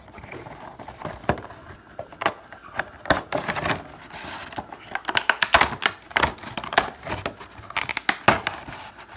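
Cardboard Funko Pop box opened and its thin clear plastic clamshell insert slid out and pried apart: irregular crinkling, scraping and sharp clicks of the plastic.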